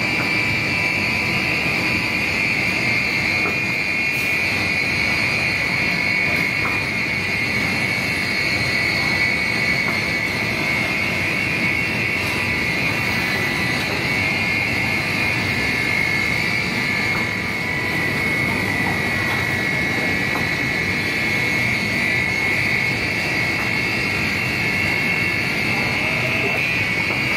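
Automatic glass loading and cutting machine running: a steady machinery hum with a constant high-pitched whine that does not change.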